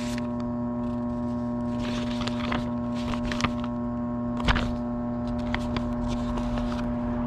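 Steady mains hum, with paper and a manila envelope rustling and crinkling in hand several times, loudest about four and a half seconds in.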